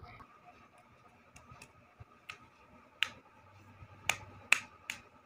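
A handful of short, sharp clicks and taps at irregular spacing over a faint steady hum: makeup items being handled. The three loudest clicks come in the second half.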